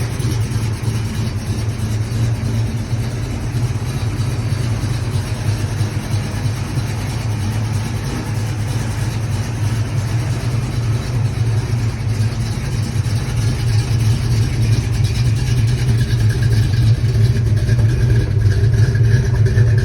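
1970 Pontiac engine with Rhoads flat-tappet lifters and iron heads running while the car is driven, a steady low engine drone that grows louder over the last few seconds. Its clatter is what the owner says Rhoads lifters with iron heads sound like, not a rod knock or piston slap.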